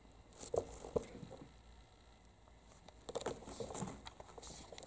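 Two tabby kittens play-fighting: soft patter and scuffling of small paws and bodies on artificial turf and a rope basket. The taps and rustles come in two bouts, about half a second in and again from about three seconds.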